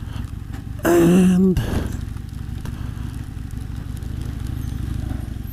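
Harley-Davidson Sportster 883 SuperLow's air-cooled V-twin running steadily at low engine speed while the bike creeps along in traffic, a low, even rumble of firing pulses.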